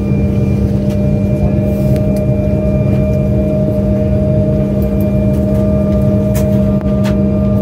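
Steady cabin drone inside an Embraer 175 twin-jet on the ground at low power: a hum with several steady tones. A couple of light clicks near the end.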